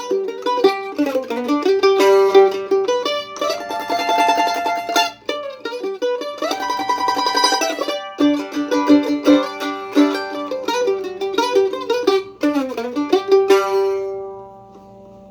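Craig Wilson WA-5 Loar-style mandolin played solo: a slow melody of plucked single notes and chords, with two stretches of rapid tremolo picking. Near the end a last note rings out and fades away.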